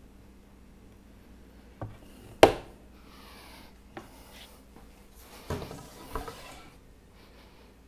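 Wooden knocks and scraping as a plywood panel and a pocket-hole jig are shifted and set in place, with a sharp knock about two and a half seconds in the loudest; no drill is running.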